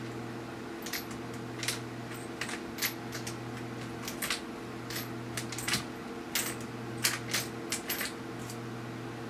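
Small metallic clicks and taps, irregular and more than a dozen, from a small screwdriver and tiny screws being fitted into a laptop LCD panel's side mounting brackets. A steady low hum runs underneath.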